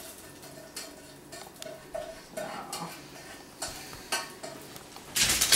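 A spoon scraping and tapping the last rice out of a saucepan: a run of light clicks and scrapes. Near the end a sudden loud noisy burst cuts in.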